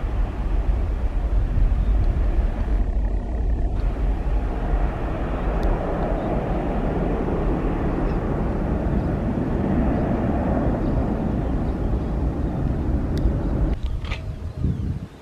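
Twin-engine jet airliner climbing out after take-off, its engines at take-off thrust giving a loud, steady rushing noise. About a second before the end the noise drops away sharply.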